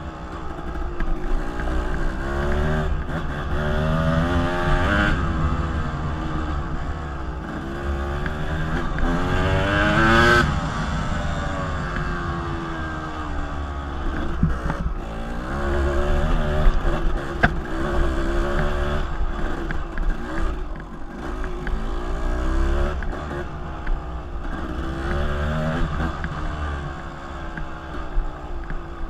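Dirt bike engine running as it rides a rough dirt track, its revs rising and falling with the throttle and climbing highest about ten seconds in, over wind rumble on the microphone.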